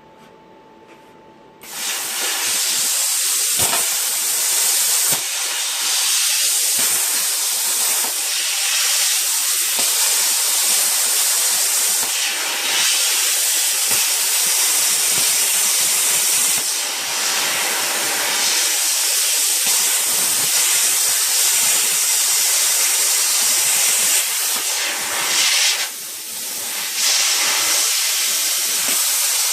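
Handheld plasma cutter cutting through a steel circular saw blade: a loud, steady hiss of the arc and air jet that starts a couple of seconds in. It briefly drops off and resumes near the end.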